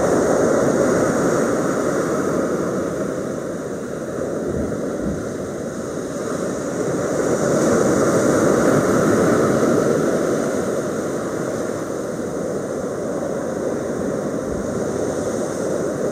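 Surf breaking and washing up a pebble beach, a steady rush that swells and eases as the waves come in, loudest about eight seconds in.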